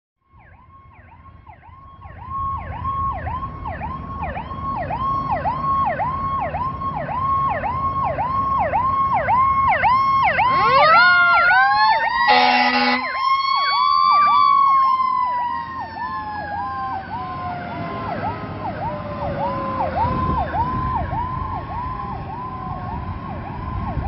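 Fire engine sirens running Code 3: an electronic siren on a fast yelp, about three sweeps a second, growing louder over the first few seconds, over the diesel engine's rumble. About eleven seconds in, a second siren winds up steeply and an air horn blasts for about a second; the wound-up siren then slowly falls in pitch over several seconds while the yelp carries on.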